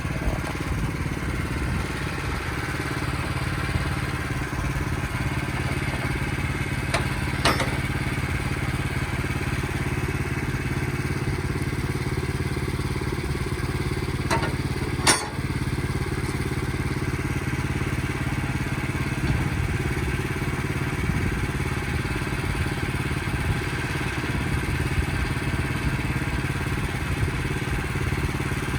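Portable sawmill's engine running steadily, with two sharp knocks, one about seven seconds in and one about fifteen seconds in.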